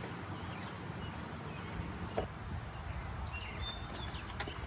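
Small birds chirping in short, scattered calls over a low steady rumble, with a sharp click about two seconds in and a few more clicks near the end.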